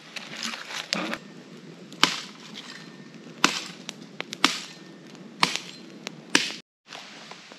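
Open wood fire crackling, with sharp pops of burning wood about once a second over a steady hiss of flames.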